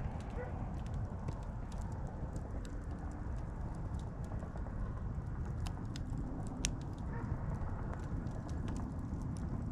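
Wood bonfire burning: a steady low rush with scattered sharp crackles and pops, one louder pop about seven seconds in.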